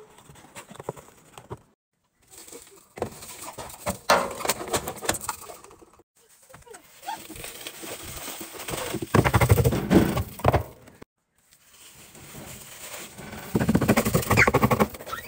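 Powdered laundry detergent being scooped and poured into the perforated stainless steel drum of a top-loading washer: a gritty, crackling hiss of granules sliding and hitting metal. It comes in several short takes split by sudden brief silences, and is loudest near the end.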